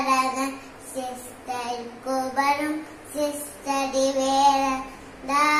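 A young boy singing a devotional prayer chant in short melodic phrases with brief breaks between them, holding one longer note near the end.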